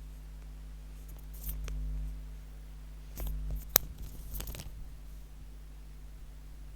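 Faint rustling and handling noises with one sharp click a little under four seconds in, over a steady low electrical hum.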